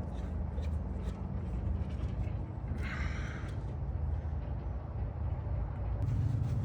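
Truck engine idling steadily with a low hum, growing louder near the end, and a brief hiss about three seconds in.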